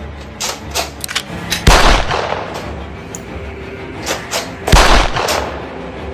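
Two loud gunshots about three seconds apart, each with a long fading tail, with several smaller sharp clicks and knocks around them, over a music bed.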